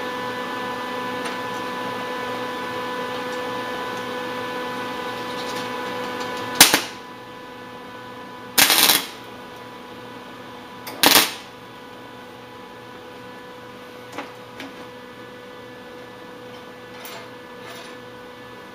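Lincoln 180 MIG welder humming, then three short bursts of the welding arc about two seconds apart as small wire pieces are tack-welded. Each burst lasts half a second or less. The arc is hard to strike, which the welder puts down to a bad ground on the small pieces.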